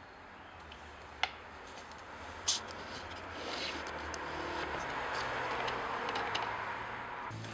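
A vehicle passing outside, its noise swelling slowly over several seconds and then cutting off suddenly near the end, after two sharp clicks in the first few seconds.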